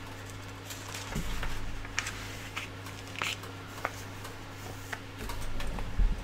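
Pages of a printed manual being turned and handled on a table: light paper rustles and small taps, with a couple of dull bumps, the loudest near the end, over a steady low hum.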